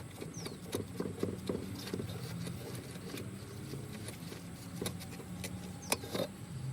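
Scattered light clicks and taps of a nut being unscrewed by hand from a riding mower's battery cable terminal, over a steady low hum.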